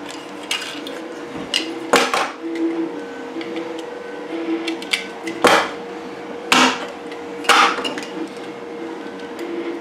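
Plastic housing of a Wi-Fi smart outlet being pried and pulled apart by hand, giving a series of sharp plastic clicks and knocks, four of them louder than the rest.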